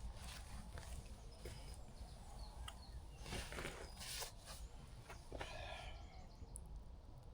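Faint outdoor ambience: a low rumble with scattered crackles and rustles, and a few faint bird chirps.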